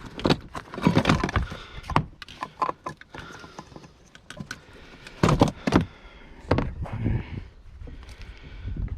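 Irregular knocks, clanks and rattles of scrap being handled: barrels of insulated copper wire, batteries and aluminum-copper AC radiators shifted about, with the loudest clatters about a second in and again around five to seven seconds in.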